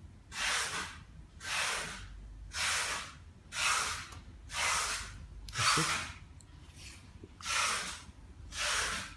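A small hand tool rubbing in repeated hissing strokes, about one a second, over a metal mold and a phone's glass-and-frame part.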